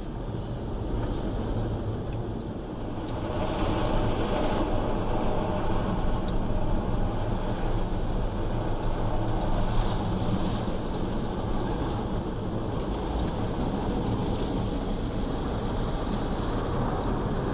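Automatic car wash heard from inside the car's cabin: a steady rush of water spray over the body and windows over a low machinery hum, with two louder surges of spray about four seconds in and again about ten seconds in.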